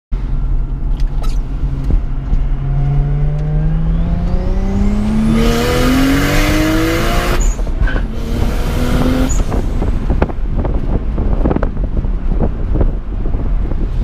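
Turbocharged Lexus IS300's 2JZ-GE straight-six accelerating hard, heard from inside the cabin. Engine pitch climbs for several seconds with a loud rushing noise building over it, drops sharply at a gear change about seven seconds in, then climbs briefly again before the driver eases off.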